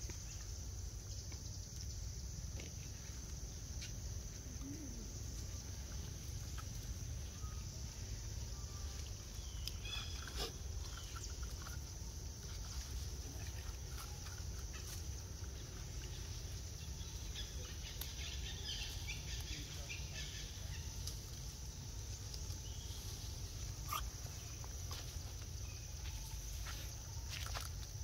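Outdoor ambience: a steady high insect drone over a low rumble, with scattered rustles and light clicks as macaques move through leaf litter, and a few faint animal calls.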